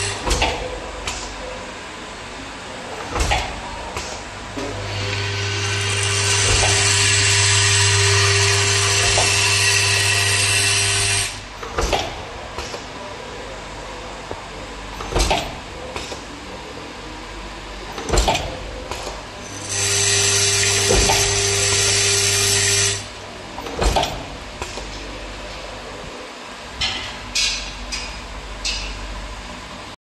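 Benchtop terminal crimping machine fitting EU plug pins to power-cable wires: a sharp crimp stroke every few seconds. Twice the machine's motor runs with a steady hum and hiss, once for about six seconds and later for about three.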